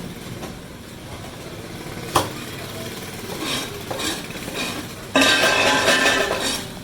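Fish being cut at a market stall: a single sharp chop of the knife about two seconds in, then scattered metallic clinks. A loud, dense clatter follows for the last second and a half.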